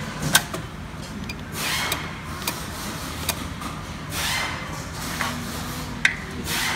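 Sharp single clicks, about six spread over several seconds, as keys on a sewing machine's electronic control panel are pressed, over a steady low hum from the idling industrial bartacking machine. A few soft rushes of noise come and go between the clicks.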